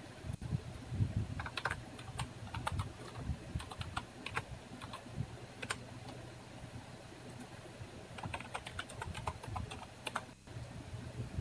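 Computer keyboard keys clicking in irregular bursts of typing, busiest in the first few seconds and again near the end, with a lull in the middle.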